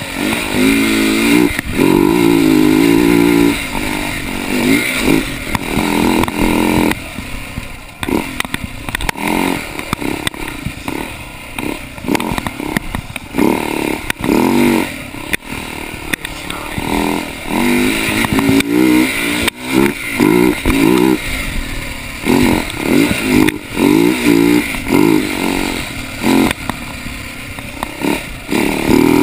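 Husaberg dirt bike engine revving up and easing off over and over as the throttle is worked on a rough trail, with knocks and rattles from the bike.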